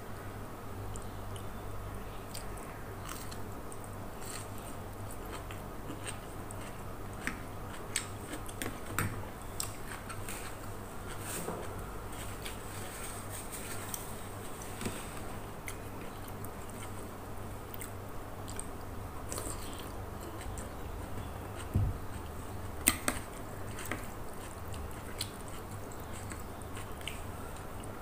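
Close-up mouth sounds of a person chewing instant noodles with raw bean sprouts and cabbage, with scattered small clicks of a fork and spoon on the plate, the loudest a few sharp clinks a little past the middle. A steady low hum runs underneath.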